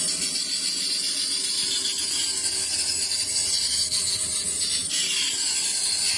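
Steady, even hiss of a tool working wood, with no break or rhythm.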